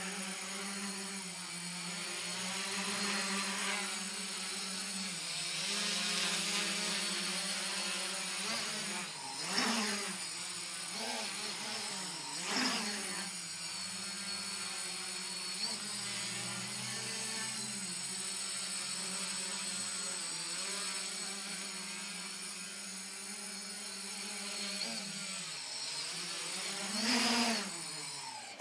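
Quadcopter's four electric motors and propellers buzzing in a low hover. The pitch and loudness swoop up and back down as the throttle is worked, about ten seconds in, again a few seconds later, and near the end.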